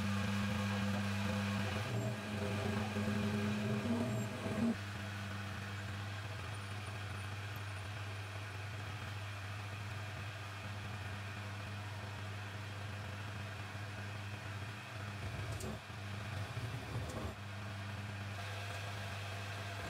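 A homemade metal lathe running under power, its electric motor and spindle giving a steady hum. The hum drops a little in level about five seconds in and carries on, with a couple of faint clicks near the end.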